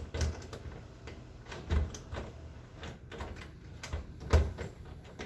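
Irregular clicks and knocks of a locked bathroom doorknob being worked with lock-picking tools, the loudest knock a little after four seconds in.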